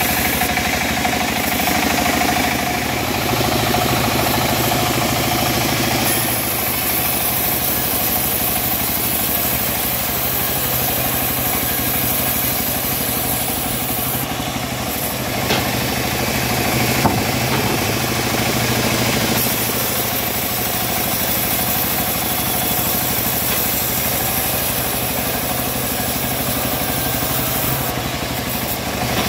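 Homemade engine-driven bandsaw mill running steadily while its blade rips through a teak log, with a couple of brief knocks partway through.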